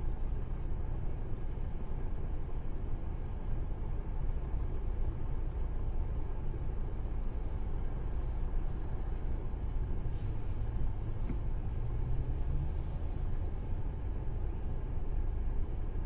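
Steady low rumble of a car heard from inside the cabin: engine and road noise.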